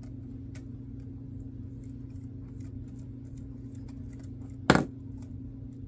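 Faint ticks and clicks of a small screwdriver working the screws on a plastic model railroad car, with one sharp, loud snap about three-quarters of the way through. A steady low hum runs underneath.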